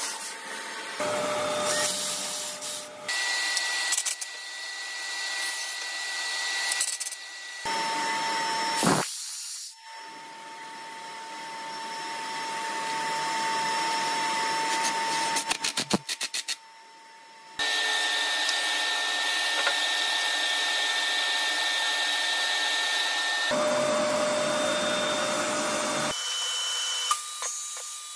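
A run of short, abruptly cut clips of power tools working wood, each with its own steady motor whine. It opens with a DeWalt cordless drill boring and ends with a Festool DF 700 Domino joiner running. A quick burst of clicks comes about sixteen seconds in.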